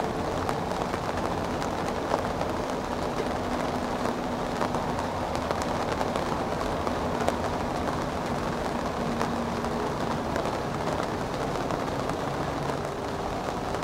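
Airbus A320 taxiing at idle thrust, its jet engines heard as a steady, distant noise mixed with rain.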